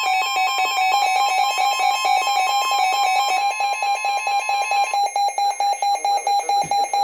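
Midland weather alert radio's alarm sounding for a received warning: a loud, rapidly pulsing two-tone alert. About five seconds in the higher tone drops out and it turns to slower beeping, about two to three beeps a second.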